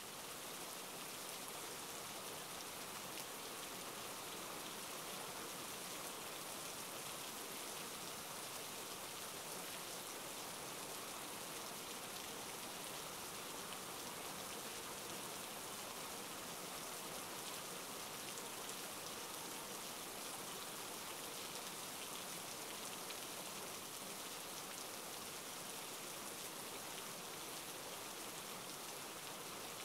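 Steady rainfall: an even hiss of many drops, with no thunder or other break.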